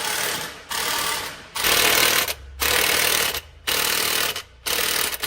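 Impact wrench hammering in about six short bursts, each under a second, working the wheel nuts loose on a Swaraj tractor's front wheel.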